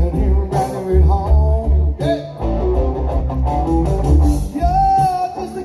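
Live music: electric guitar played over a steady, deep bass line.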